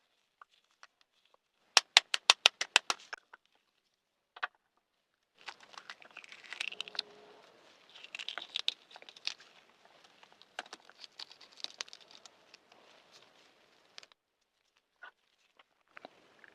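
A boiled balut (fertilised duck egg) shell tapped about ten quick times to crack it. This is followed by fine crackling and crinkling as the cracked shell is picked and peeled away.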